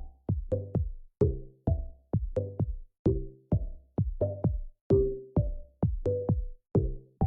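Background music: an electronic track with a steady drum-machine beat and pitched bass notes.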